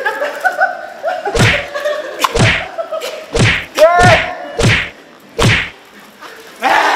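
A run of about six heavy slapping thuds, roughly a second apart, from bodies and hands striking each other and the mat during rough grappling, with a short yelp near the middle.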